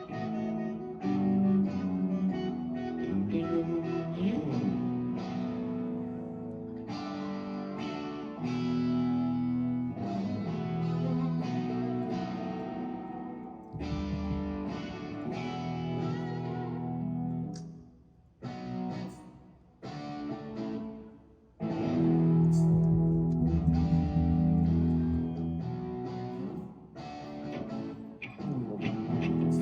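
Electric guitar music: chords struck and left ringing, with a few short breaks about two-thirds of the way through.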